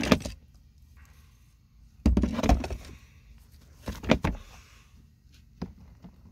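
Bursts of dull knocks and rubbing from handling: one at the start, one about two seconds in and one about four seconds in, with a single click near the end.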